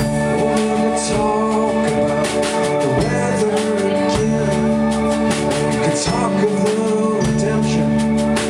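Live band playing a song: a man singing over acoustic guitar, electric bass, electric guitar and a drum kit with cymbals.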